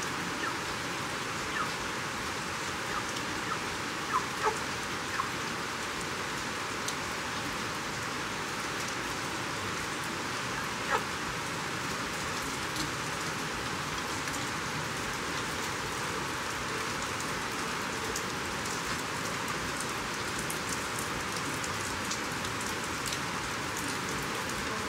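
Heavy rain falling steadily, a dense even hiss, with a few sharper ticks standing out, the loudest about eleven seconds in.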